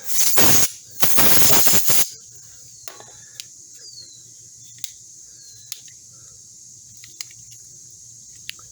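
Two blasts of canned compressed air blown into the joints of a stiff multi-tool, the second about a second long, followed by scattered faint clicks as the tool's hinged parts are worked.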